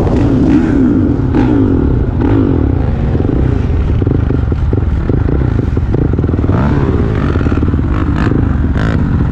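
Dirt bike engine revving hard under load, its pitch climbing and dropping repeatedly as the throttle is worked, with a few sharp knocks along the way.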